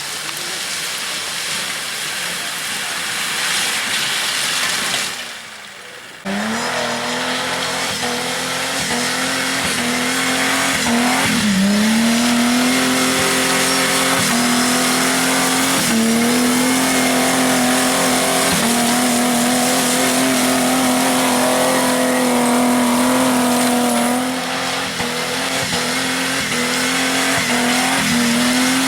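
Off-road 4x4's engine held at high, steady revs at full throttle climbing loose stone, with a few brief dips in pitch. It comes in suddenly about six seconds in, after a few seconds of rushing noise.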